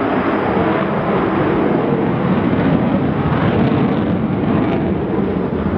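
Avro Vulcan's four Rolls-Royce Olympus turbojet engines, a loud, steady jet rumble as the bomber flies a banking turn.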